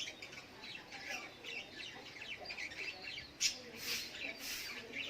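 Sogok ontong (brown-throated sunbird) calling: a rapid run of short, high twittering chirps. From about three and a half seconds in come louder, harsh hissing notes, roughly two a second.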